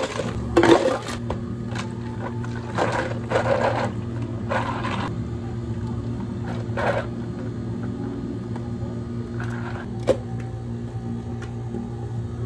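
Ice cubes clattering into plastic cups at the start, then milk poured from a carton over ice in a few short pours, with a steady hum of cafe equipment underneath. A single sharp knock comes about ten seconds in.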